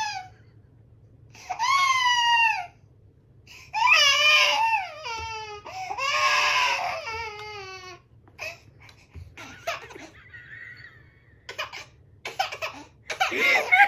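A baby squealing with laughter: three long, high-pitched shrieks, each falling in pitch at its end, followed by shorter squeals and a few clicks near the end.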